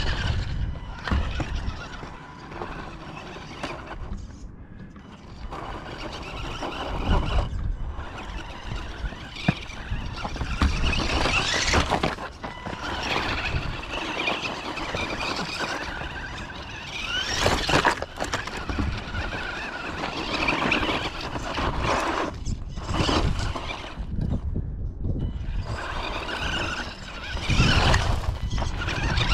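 Small electric RC buggy, an Axial Yeti Jr Can-Am, driving in spurts. Its motor and gears whine high-pitched, rising and falling with the throttle.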